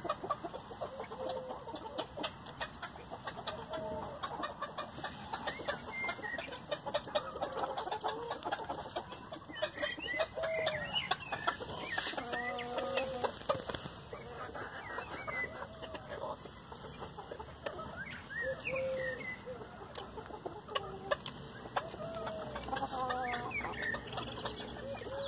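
Chickens clucking as they feed: many short clucks scattered throughout, with a longer, drawn-out call about twelve seconds in.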